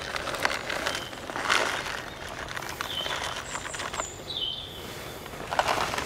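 Dry food pellets being poured from a plastic bag into a hollow log, with the bag rustling, in several bursts. A few short, high bird notes sound in between.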